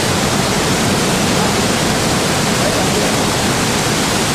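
Steady, loud rush of the Pailón del Diablo, a large waterfall in heavy flow, pouring over rock.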